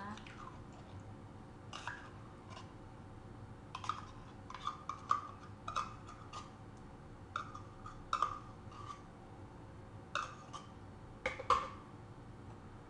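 Metal spoon scraping and clinking against the inside of a small tin can while scooping out thick, fridge-set cream, in about a dozen irregular scrapes and taps with a short ring.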